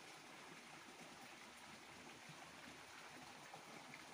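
Faint, steady rush of water flowing in a small ditch.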